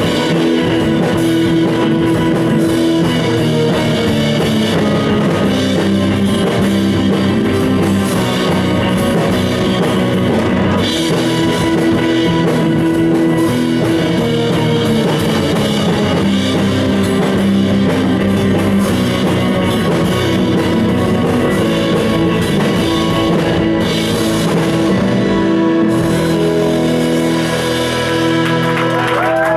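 Live rock band playing: electric guitar, keyboard, bass and drum kit. Near the end the drums and cymbals drop out and a held chord rings on.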